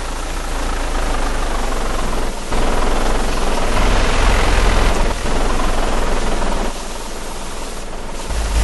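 Loud storm wind and rain noise over a deep steady rumble, surging and easing: it swells about a third of the way in, drops back past the middle and rises again at the end.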